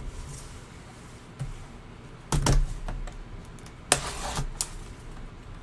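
Cardboard box handled by gloved hands: scattered knocks and rustles, a heavy thump about two seconds in, then a sharp click and a short scraping sound as the tape seal is cut open.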